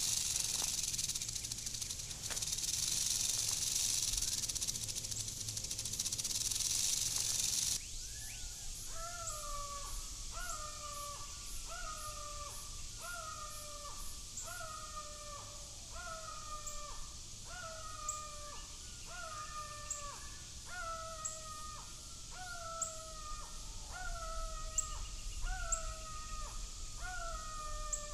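Eastern diamondback rattlesnake's rattle buzzing steadily for about eight seconds, then cutting off sharply. After that a red-shouldered hawk calls a run of slurred, falling 'kee-ah' notes, about one a second.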